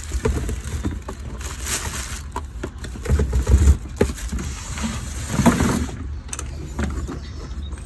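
Cardboard packaging rustling and knocking as a boxed pressure washer is pulled out, in irregular bursts over a steady low rumble.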